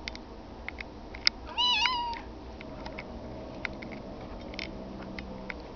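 Domestic cat giving a single short meow about a second and a half in, its pitch wavering. A few faint clicks come before and after it.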